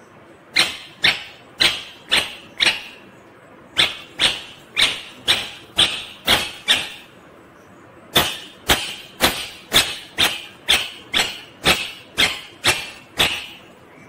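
Ringneck parakeet giving sharp, loud calls, about two a second, in three runs with short pauses between.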